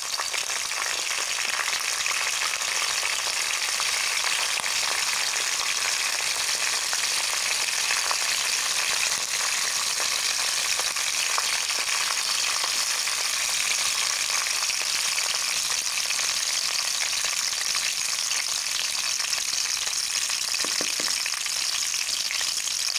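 Curry leaves, mustard seeds, cumin and urad dal sizzling steadily in hot oil in a nonstick pan: a tempering frying.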